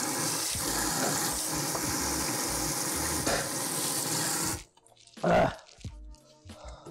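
Kitchen sink faucet running, the stream splashing into a plastic container being rinsed, until the tap is shut off abruptly a little past four and a half seconds in. A single short, loud thump follows about a second later.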